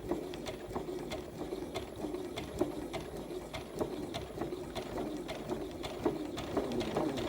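Sewing machine running steadily, stitching a seam with a rapid, even ticking of the needle mechanism.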